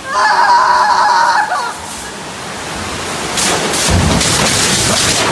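Rainwater gushing down through the ceiling and splashing into the room, a heavy rushing noise that builds and turns loud about three seconds in. A high-pitched voice cries out over the first second and a half.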